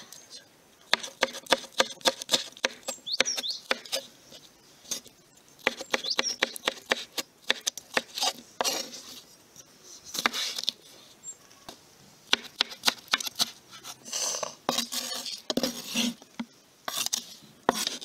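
Kitchen knife slicing tomatoes on a wooden cutting board: quick runs of sharp taps as the blade meets the board, broken by a few longer scraping strokes.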